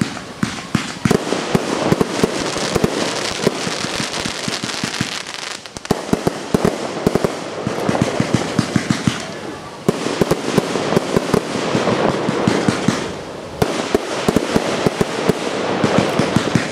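Aerial fireworks bursting in quick succession: dense sharp cracks and pops over a steady hiss, with brief lulls about six, ten and fourteen seconds in.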